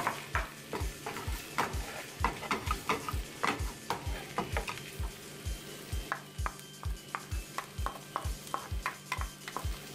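Wooden spoon stirring cooked rice into a frying pan of sautéed ground beef and vegetables, knocking and scraping against the pan about three times a second, over the sizzle of the frying filling.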